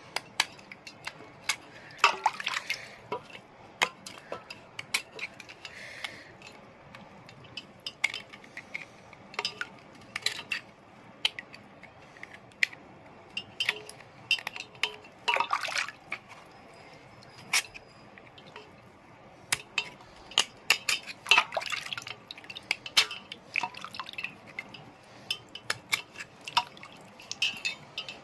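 Small knife scraping the thin crunchy outer layer off a wet grey stone, in short irregular scrapes and sharp clicks, a few longer strokes among them, with drips into a steel bowl of water.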